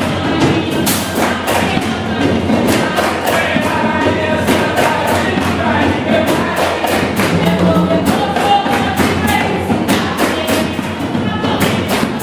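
Jongo music played live: hand drums and a drum kit keeping a steady, dense rhythm, with a group of voices singing over it.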